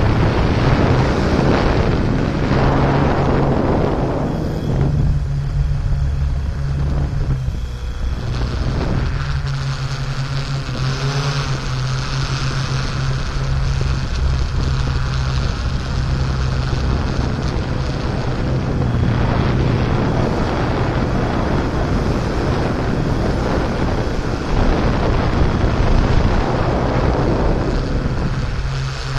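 Steady buzzing hum of a camera drone's propellers and motors, with wind rushing over the microphone.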